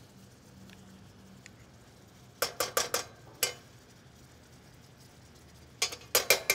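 A metal spoon clinking against dishes in two quick clusters of several clicks, about two and a half seconds in and again near the end, as butter is scooped from a small glass dish into the caramel skillet. A faint steady hum lies underneath.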